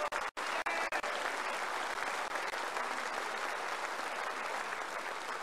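Crowd applauding with steady, even clapping that slowly dies down. The sound drops out briefly twice in the first half second.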